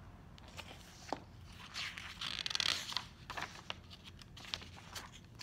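Pages of a stiff board book being handled and turned: an irregular run of rustles, scrapes and small clicks, busiest a couple of seconds in.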